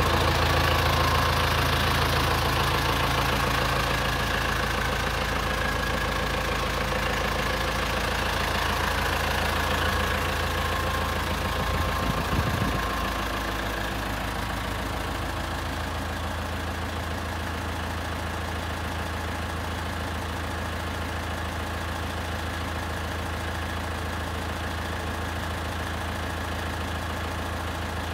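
Renault Ares 550 RX tractor's diesel engine idling steadily. There is a brief bump about twelve seconds in, and after it the engine sounds somewhat quieter.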